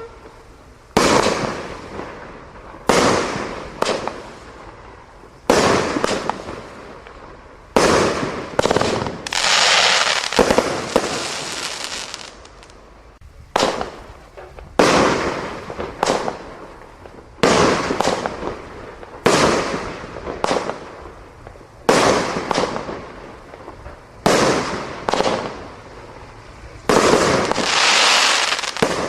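Consumer fireworks going off in a rapid series of sharp bangs about every one to two seconds, each fading out quickly. Twice a longer crackling hiss follows, about ten seconds in and near the end.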